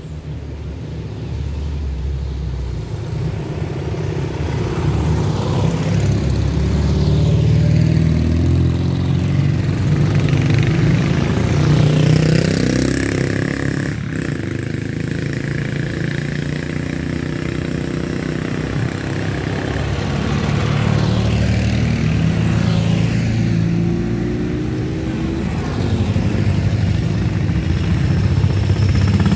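Old motorcycle engine running under way, its pitch rising and falling with the throttle, with a single sharp click about halfway through.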